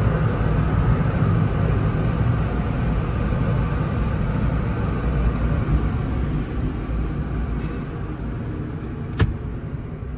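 Low steady rumble heard from inside a car's cabin as it rolls out of a car wash tunnel, slowly fading, with a single sharp click about nine seconds in.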